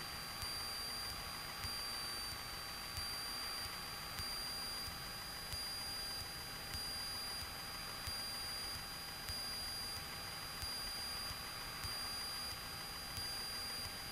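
Cessna 210 in flight heard faintly through the aircraft's audio panel: a low engine drone under a steady high-pitched whine, with a soft tick about every second and a quarter.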